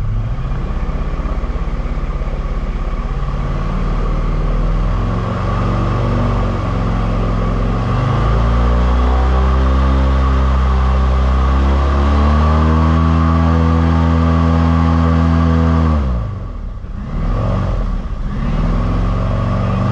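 Airboat engine and propeller running under way. The engine note climbs and holds high, then drops sharply about sixteen seconds in and picks up again a couple of seconds later.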